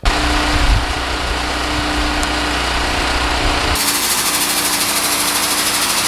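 A seed tender's small engine running steadily, powering the conveyor that fills the planter with seed. Wind rumbles on the microphone for the first few seconds.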